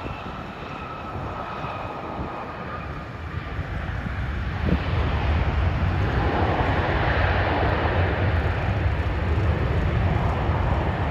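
Boeing 737 jet engines running on the runway. A high whine falls slightly in pitch and fades over the first few seconds, then a louder, steady rushing engine noise swells about five seconds in and holds.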